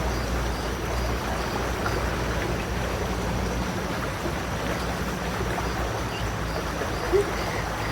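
Shallow river running over stones, a steady rush of water, with a low rumble underneath for the first few seconds.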